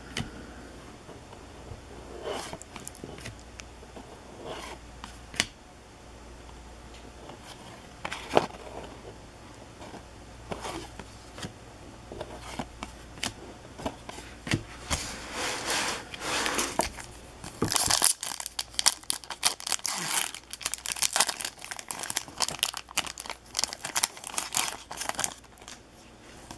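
Paper hockey trading cards being handled and flipped through on a table: a few single taps and slides of card stock, then from about halfway on a fast, dense run of card edges flicking and shuffling against each other.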